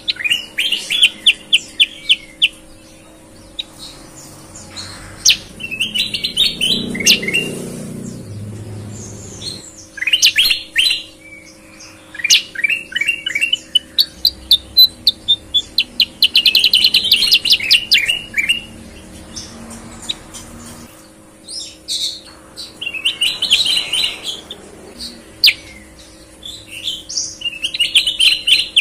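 Caged kutilang bulbuls singing persistently: bursts of quick, rapidly repeated chirping notes, phrase after phrase with short pauses between.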